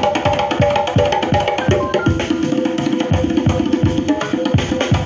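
Music played loudly through a sound-system speaker cabinet during a sound test, with a fast, busy drum rhythm and sustained melody notes over it.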